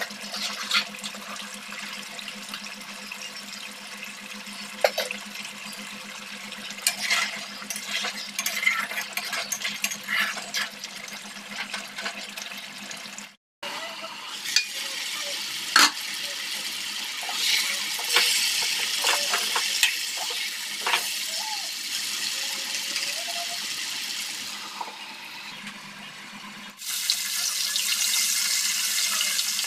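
A thick chicken curry bubbling in a pot, with a metal spatula clicking and scraping against the pot. Near the end, whole fish frying in oil with a steady, louder sizzle.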